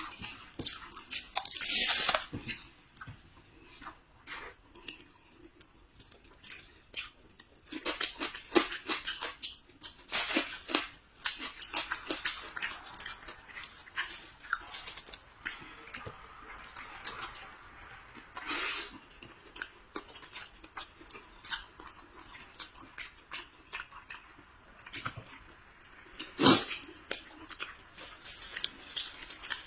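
A person chewing food close to the microphone: irregular wet smacks and small crunches, with a few louder short mouth sounds scattered through.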